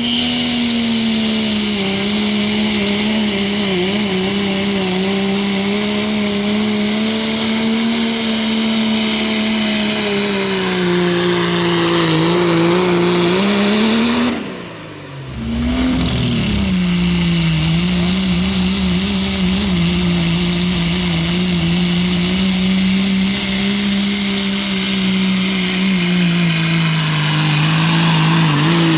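Diesel pickup trucks pulling a sled at full throttle, one after the other. Each gives a steady, heavy engine note with a high whistle that rises in as its pull begins. The sound drops briefly about halfway through, where the first pull ends and the second truck starts.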